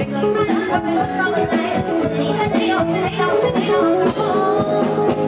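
Upbeat Isan live band music from a rot hae sound-truck show, with a steady drum beat under melodic instruments.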